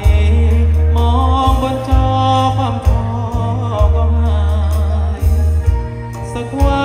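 A male singer sings a melody into a microphone over loud amplified band music with heavy bass, played through a stage PA.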